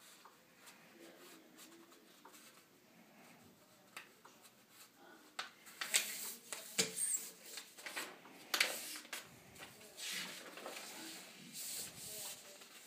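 A sheet of paper being folded by hand on a tabletop: quiet at first, then from about halfway a run of crisp rustles and swipes as the folds are creased and pressed flat.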